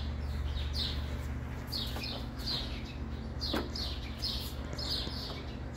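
Small birds chirping, short falling chirps every second or so, over a steady low hum.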